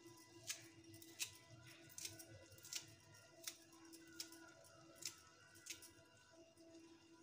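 Small kitchen knife cutting through a bunch of fresh herb leaves held in the hand: faint, sharp snips about every three-quarters of a second, stopping shortly before the end.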